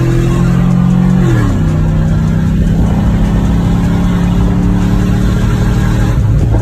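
Chevrolet Silverado's 5.3-litre V8 accelerating through a Carven muffler, heard from inside the cab. The exhaust note drops in pitch about a second in as the transmission upshifts, then pulls on steadily with a not-too-loud but aggressive tone.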